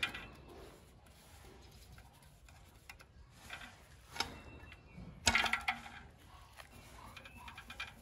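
Metallic clicks and clinks of a long screwdriver working a screw inside a square steel fan-stand tube. A louder rattling clatter of metal comes about five seconds in.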